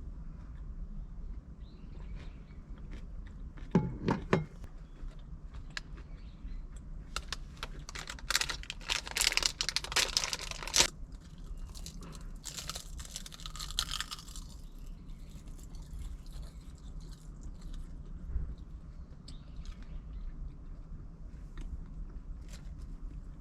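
Crackling, crunching handling noises in two longer stretches, with a few sharp clicks before them, over a steady low hum.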